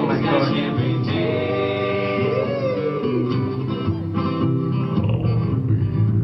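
A man singing live into a microphone, with guitar accompaniment and a strong deep low end under the melody.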